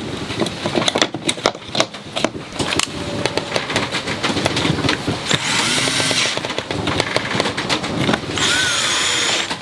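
Cordless drill driving screws to fasten a louvered wooden vent grille, in two short runs of about a second each, one about halfway through and one near the end, the motor speed rising and falling. Before that, knocks and clicks of the grille being handled into place.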